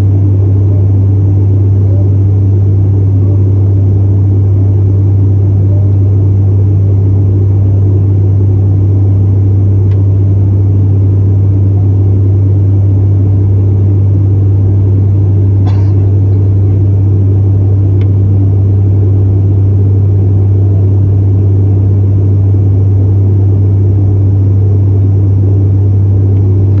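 Cabin drone of an ATR 72-500 in cruise: its Pratt & Whitney PW127 turboprops and six-blade propellers give a loud, steady rumble with a strong low hum from the propeller blades. A single faint click a little past the middle.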